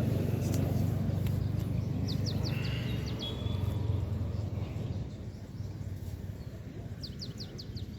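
A bird calling twice, each time a quick run of high chirps, about two seconds in and again near the end, over a low outdoor rumble that fades about halfway through.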